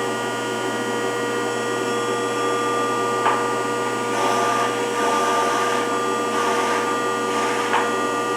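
Rockford 36-inch hydraulic planer running on its first start after 30 years in storage: the electric motor and hydraulic pump give a steady whine over a mechanical hiss, with two sharp clicks, about three seconds in and near the end.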